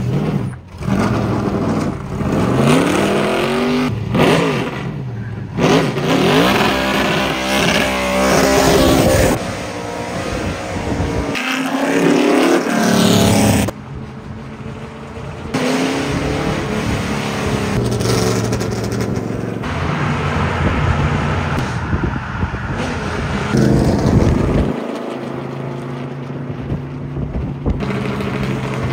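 V8 engine of a Ford Taurus NASCAR stock car (about 750 horsepower) revving and accelerating on the road, its pitch climbing and dropping again and again through the gears. The sound breaks off and changes abruptly a few times, around 11, 14 and 25 seconds in.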